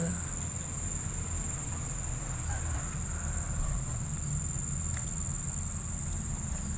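Insects trilling in a steady, unbroken high-pitched drone from the surrounding vegetation, over a faint low rumble.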